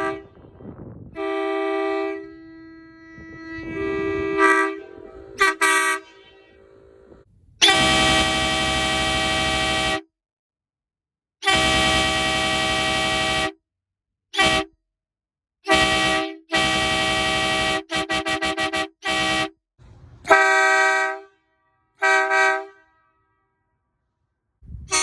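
Hadley H00910CA "Bully" truck horn sounding a series of blasts. There are quieter, shorter honks in the first few seconds, then two long blasts of about two seconds each, a quick run of short toots, and a few more brief blasts. Each blast is a steady tone with rich overtones.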